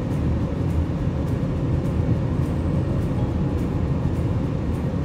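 Steady low rumble of a car driving at highway speed, heard from inside the cabin: tyre and engine noise.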